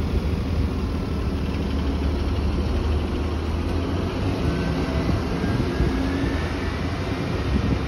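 Transit bus engine running as the bus pulls away from the stop and drives off, a steady low hum with a faint rising whine about halfway through.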